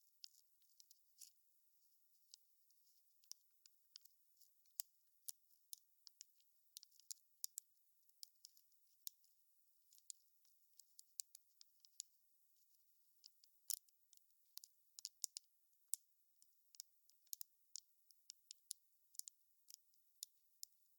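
Wood fire crackling: irregular sharp pops and snaps, a few each second, with almost nothing underneath.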